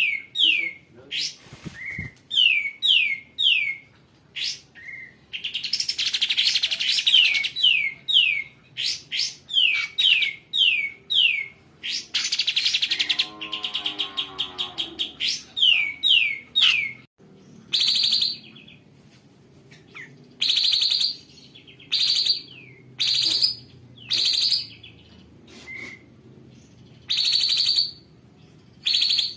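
Kapas tembak singing: quick runs of short, sharp down-slurred chip notes mixed with harsh, raspy bursts, then, in the second half, spaced single buzzy calls about a second apart.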